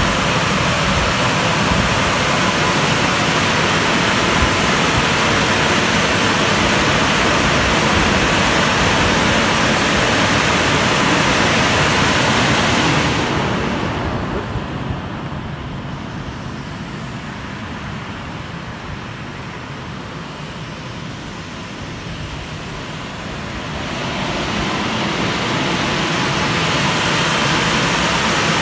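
WashTec SoftWash rollover car wash's drying blowers running, a steady loud rush of air. It turns softer and duller for about ten seconds in the middle, then comes back up to full loudness.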